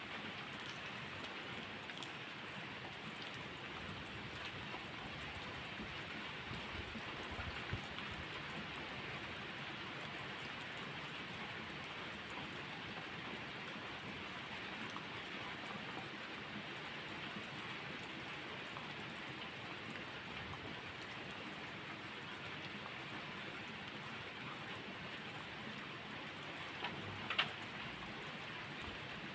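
Steady rain falling, with a few sharp pops now and then, the loudest near the end.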